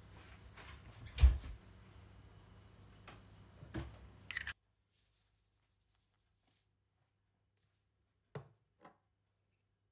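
A few sharp clicks and knocks of eggshell handling as a duck egg is pulled open over a glass bowl and the shell halves are set aside, the loudest about a second in. Two more faint clicks come near the end.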